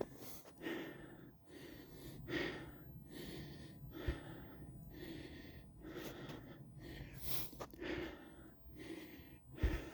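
A hiker walking on a snowy trail: regular crunching footsteps, somewhat more than one a second, mixed with breathing, and two brief low thumps.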